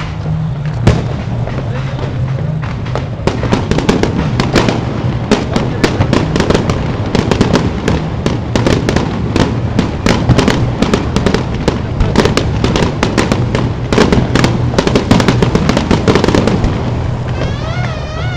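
Aerial fireworks going off: a rapid, irregular volley of sharp bangs and crackling bursts that thickens after the first few seconds and thins near the end.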